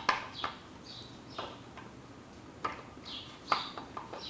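A handful of irregular, sharp plastic clicks and taps from a turn signal bulb socket being handled and fitted back into a car's front lamp housing.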